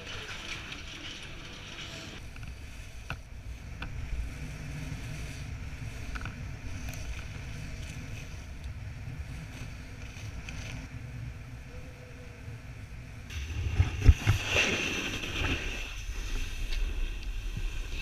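Wind and movement noise on an action camera's microphone during snowboarding: a steady low rumble, with a louder stretch of scraping and a sharp knock about fourteen seconds in.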